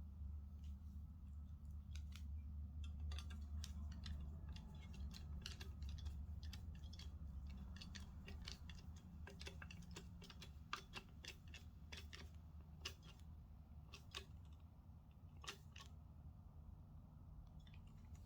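Scattered faint clicks and taps of monitor parts and screws being handled, over a low steady hum.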